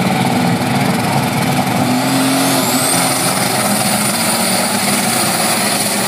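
Modified pulling tractor's engine running at full power as it pulls the weight sled. About two seconds in, a high whine rises and then holds steady over the engine.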